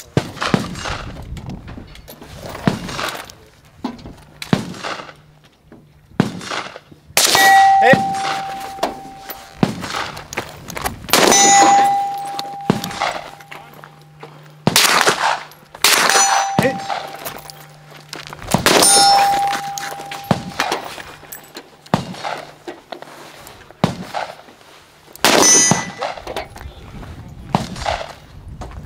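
A string of gunshots at steel targets, irregularly spaced, with the plates ringing after hits. Several of the loudest cracks are followed by a clear metallic ring that fades over about a second.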